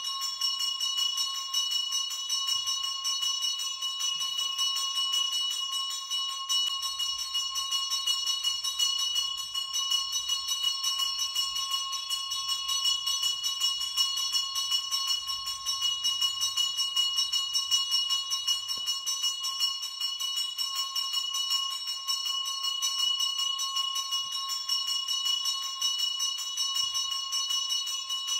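Temple bell ringing rapidly and without pause at a steady pitch, as during the aarti lamp offering of a puja.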